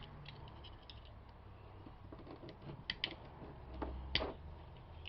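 Light metal clicks and small scrapes of a tool working at a snap ring on a door knob's brass mechanism, with a few sharper clicks about three and four seconds in.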